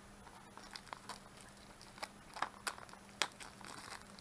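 Plastic packaging being handled and pulled at by hand, with scattered sharp crinkles and clicks. The loudest click comes about three seconds in.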